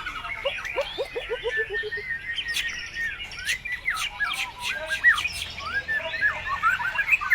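White-rumped shama (murai batu) singing a fast, varied song of whistles, chirps, sharp clicks and trills, packed with mimicked calls of other birds. About half a second in, it gives a quick run of falling notes.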